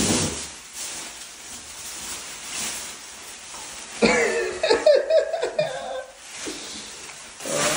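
A man laughing in short broken bursts about four seconds in, after a quieter stretch of faint rustling.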